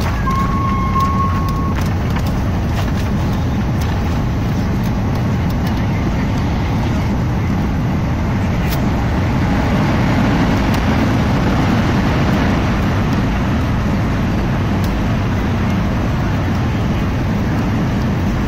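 Jet airliner cabin noise during landing: engines and rushing air as a loud, steady rush that grows a little louder around the middle. A brief steady high tone sounds near the start.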